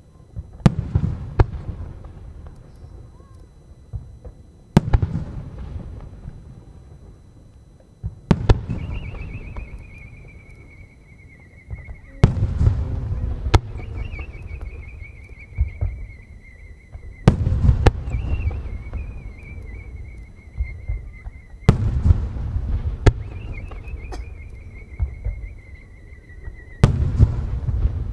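Aerial firework shells fired one after another, one every four to five seconds. Each launch thump is followed by a warbling whistle that falls in pitch for about three seconds as the shell climbs with its glowing tail, then the shell bursts with a deep boom.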